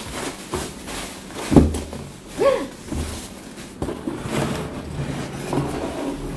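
A cardboard box and plastic wrapping being handled while a parcel is unpacked: rustling and scraping with a few short knocks and thumps.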